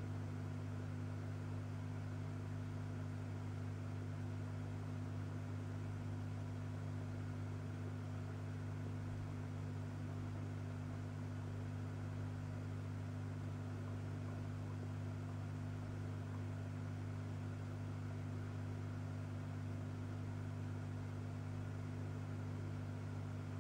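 Aquarium pump humming steadily, a low even hum over a faint hiss.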